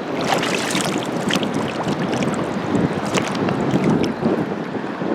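River water splashing and running close to the microphone, with irregular small splashes and some wind noise on the microphone.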